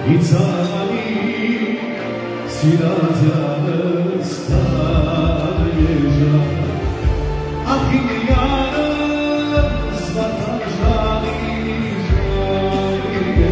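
A man sings a song into a microphone through a PA, accompanied by an electronic keyboard. About four and a half seconds in, a low pulsing bass beat joins the accompaniment.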